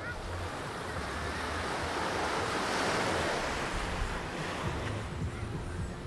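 Small sea waves breaking and washing up a sandy beach at the water's edge: a hiss that swells to a peak about halfway through, then fades as the wash draws back.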